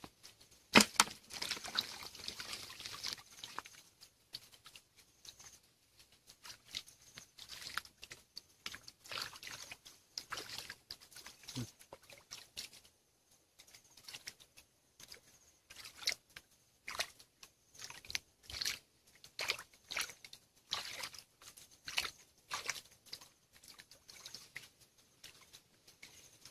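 Hands splashing and sloshing in shallow muddy water while groping for fish, in short irregular bursts, with the loudest splash about a second in.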